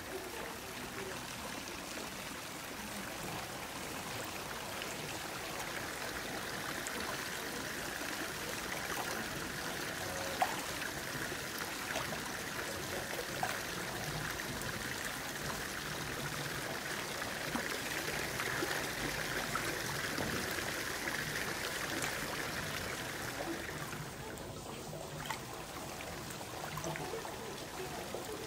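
Hot-spring water running steadily into an open-air bath, with a couple of small drips or splashes. Near the end the rush of water briefly thins.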